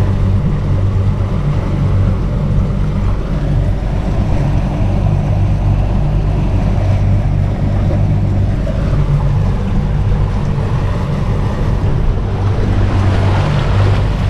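Yamaha outboard motor running steadily under way at fast trolling speed, with the wash of water from the wake.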